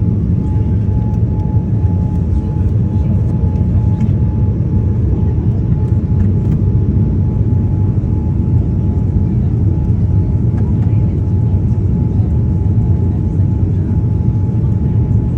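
Steady cabin noise inside a Boeing 787 Dreamliner on approach: a dense, even low rumble of engines and airflow, with a thin, steady high tone running through it.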